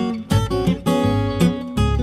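Background music: acoustic guitar playing a bluesy country tune, with picked notes over a steady bass beat.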